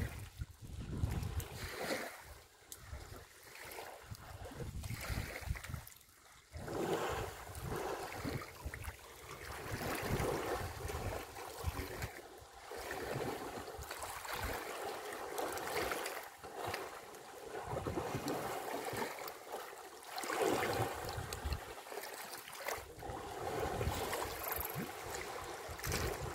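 Water splashing and sloshing as elephants swim, roll and spar in a waterhole, in uneven surges, with wind buffeting the microphone at times.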